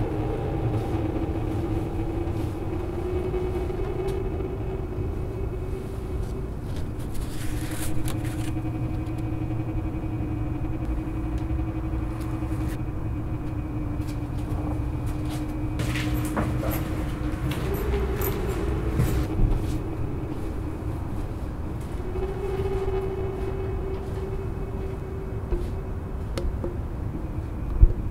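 Dark ambient drone: a steady low rumble under a sustained hum that shifts between two pitches, with scattered faint crackles and a short sharp knock near the end.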